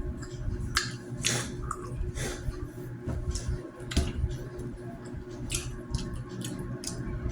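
Eating sounds: many short clicks and soft wet squishes of snacks being handled, dipped in sauce and chewed, with faint background music underneath.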